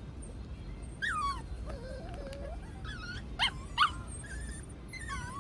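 A dog whining in high whimpers that fall in pitch, with a lower drawn-out whine and two short, sharp yips close together a little past the middle.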